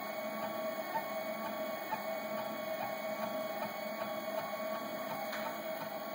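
Delta 3D printer printing, its stepper motors running with a steady whine and faint scattered ticks as the carriages, driven by braided filament line instead of belts, move the print head.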